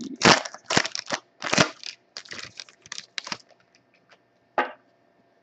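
Foil trading-card pack wrapper being torn open and handled: a quick run of short crackling rips and crinkles, thinning out, with one last crinkle near the end.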